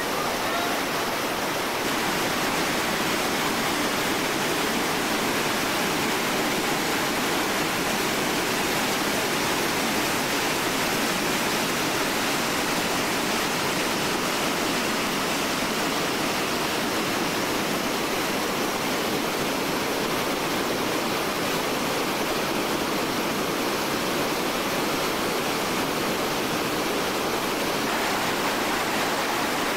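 Whitewater rapids rushing steadily: an even, unbroken noise of heavy turbulent water.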